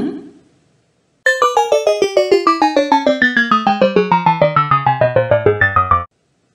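A quick run of piano-like keyboard notes, about seven a second, stepping steadily downward in pitch from high to low for nearly five seconds, then cutting off abruptly.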